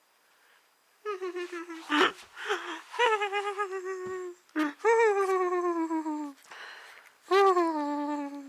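West Highland white terrier puppies whining: a string of short high whimpers, a sharp yelp about two seconds in, then several long whines that each slide down in pitch.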